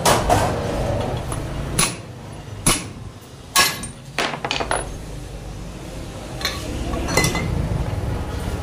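Steel parts clinking and knocking against steel fixtures and tools as a motorcycle crankshaft and its bearing are moved between holders, about eight sharp metallic clinks with brief ringing, over a steady low rumble in the background.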